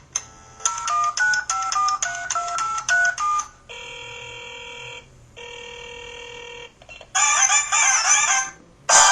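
LG-KP3500 mobile phone playing its built-in ringtones and effect sounds one after another. First comes a short tune of quick alternating electronic notes. Next are two steady electronic ring beeps of about a second and a half each, and then a brief busier melody.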